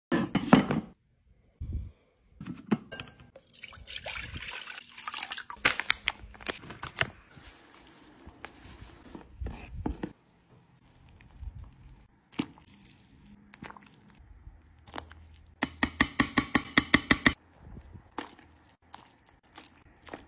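Cooking sounds at a small electric pot of broth: liquid dripping and sloshing, and a metal spoon clinking and stirring against the pot. About three-quarters of the way through comes a quick run of clicks, roughly ten a second.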